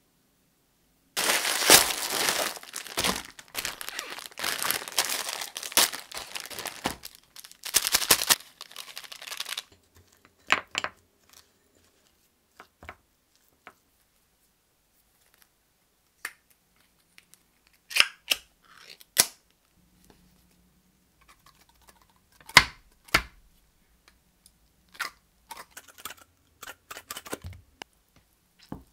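Plastic food packaging crinkled and torn open for about eight seconds, followed by scattered light clicks and knocks of kitchen items being handled.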